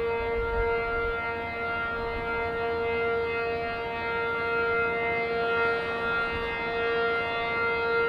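Outdoor warning siren sounding one steady, unchanging tone, a public alarm over a refinery fire.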